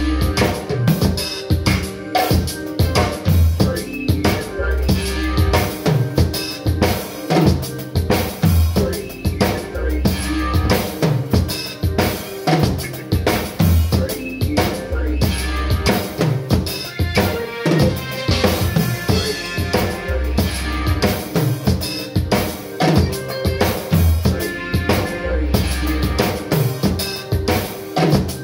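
Acoustic drum kit played energetically along to a recorded song, with a steady beat of bass drum, snare and cymbal strokes over the track.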